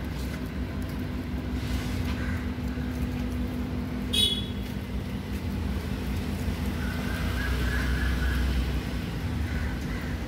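Steady low mechanical hum, with one short, sharp, high-pitched sound about four seconds in.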